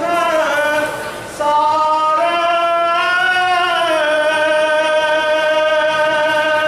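Unaccompanied Assamese Nam devotional singing: a man's voice holding long notes that glide gently between pitches, with a brief break about a second in.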